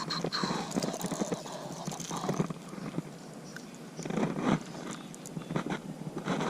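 Irregular light knocks and rustles from a small, just-caught bass being handled and unhooked with pliers.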